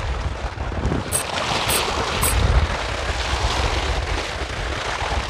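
Wind buffeting the microphone in a steady low rumble over the wash of small sea waves, with three short high clicks about half a second apart near the start.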